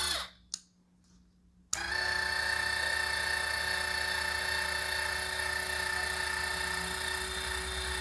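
Electric linear actuator's DC motor and gearbox running with a steady whine. It stops just after the start, a single click follows, then it starts again suddenly about a second and a half in and runs steadily as the rod extends.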